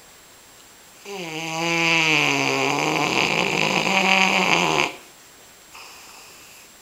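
Dog snoring: one long, loud, pitched snore lasting nearly four seconds, starting about a second in, its pitch dipping slightly and then holding steady. A faint short sound follows near the end.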